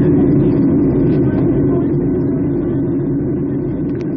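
Steady low roar of a Boeing 757-200's engines and airflow heard inside the passenger cabin during the climb after takeoff, gradually getting quieter.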